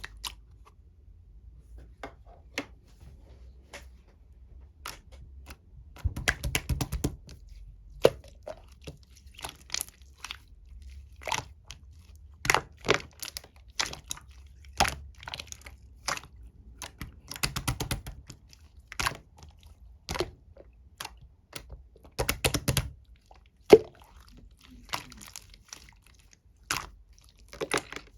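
Black marbled slime being squished and poked by hand: scattered sharp pops and clicks, with three short runs of rapid crackling.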